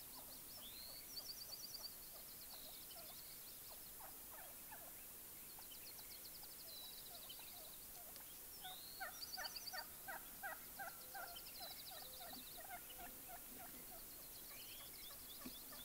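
Gould's wild turkey toms gobbling, faint and distant: a short rattling gobble about a second in and a longer run of gobbling around the middle.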